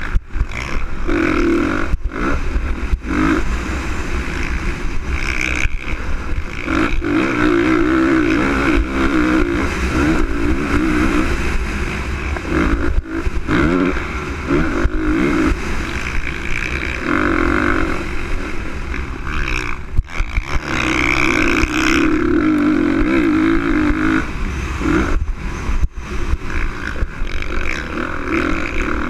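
2013 Honda CRF450R's single-cylinder four-stroke engine racing, revving up and easing off over and over as the throttle is opened and shut, heard from an onboard camera with wind rumbling on the microphone.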